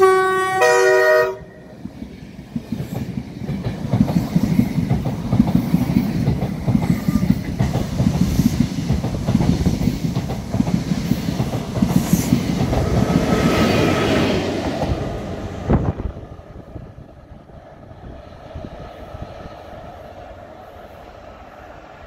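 British Rail Mark 3 Driving Van Trailer sounding its two-tone horn, a low note then a higher one, in a blast lasting just over a second as it approaches at speed. Its train of coaches then passes close by at speed, rumbling with the wheels clattering, for about fourteen seconds. The noise drops off sharply about sixteen seconds in and gives way to a fainter rumble as the train recedes.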